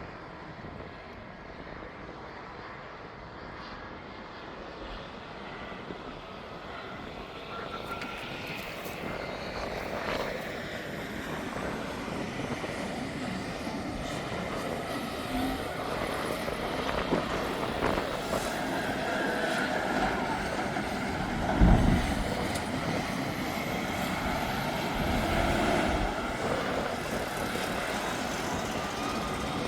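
Engine noise that grows steadily louder over some twenty seconds as it draws nearer, with a single thump a little after twenty seconds in.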